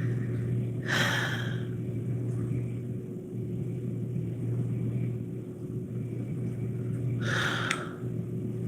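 A person breathing out audibly twice, about a second in and again near the end, over a steady low hum.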